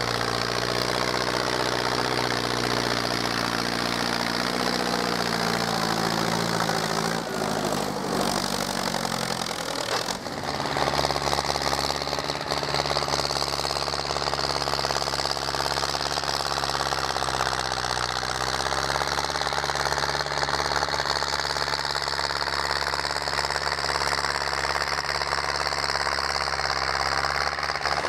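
Belarus MTZ-82 tractor's four-cylinder diesel running steadily under load while pulling a stubble cultivator through the soil. The engine note shifts about ten seconds in.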